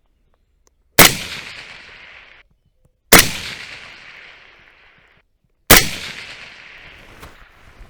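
Suppressed short-barrelled AR-15 rifle firing 5.56 mm rounds: three single shots about two seconds apart, each followed by a long echoing tail.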